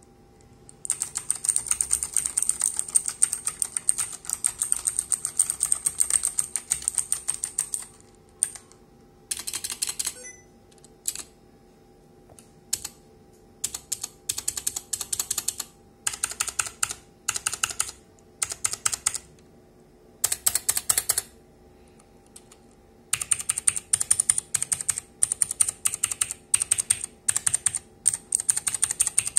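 Typing on a mechanical keyboard with Outemu Blue clicky switches: rapid crisp clicks in fast runs, broken by short pauses, with a dense stretch at the start and again from about three-quarters of the way in.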